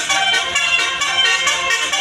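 Tour bus's basuri (telolet) musical air horn playing a melody, several horn tones sounding together and changing note.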